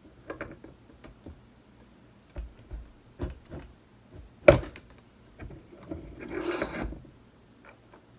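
One-ton hand-lever arbor press forcing the needle-bearing trunnion out of a stock GM LS rocker arm: a few low thumps as the lever bears down, then one loud sharp crack about four and a half seconds in as the trunnion breaks free, followed by about a second of metal scraping and rattling.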